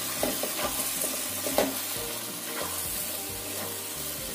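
Sliced string beans and oyster mushrooms sizzling in a wok while a wooden spatula stirs them, with a few short clicks of the spatula against the metal pan.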